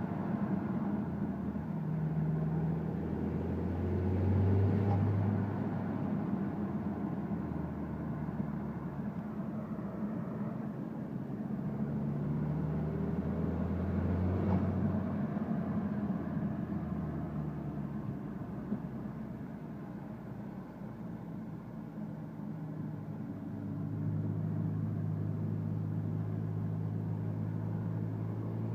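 Car engine running, its pitch rising and falling several times as engine speed changes. The owner suspects a boost or vacuum leak.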